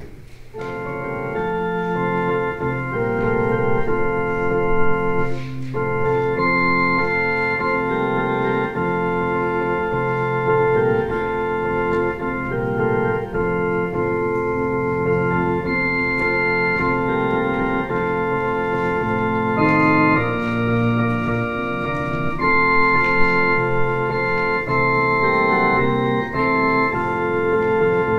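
Organ playing a slow church prelude: sustained chords held and changed every second or two, beginning about half a second in.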